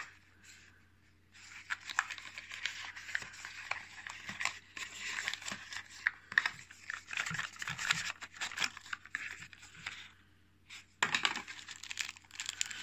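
A small cardboard accessory box being opened and its contents handled: rustling and scraping with many small clicks, with a pause of about a second near the end.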